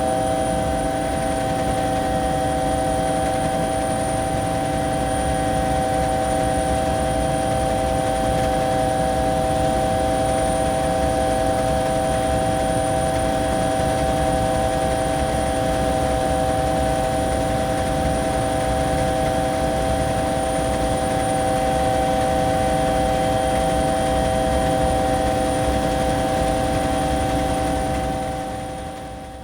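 Bell 212 twin-turbine helicopter running steadily, heard from inside the cabin: a constant low rumble with several steady engine tones and a thin high turbine whine. It fades out near the end.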